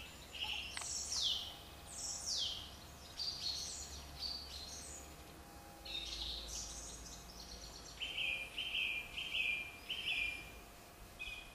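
Birdsong from the canal-side trees: several notes sweeping down in pitch in the first seconds, scattered chirps, then a run of about five short repeated notes near the end, over faint outdoor background noise.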